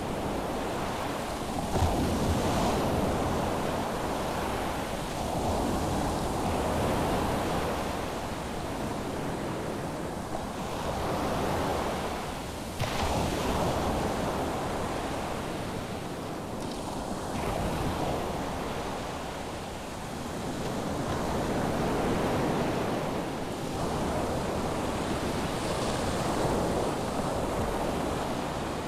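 Ocean surf breaking on a sandy beach, a steady wash of waves that swells and fades as each one comes in, about every four seconds.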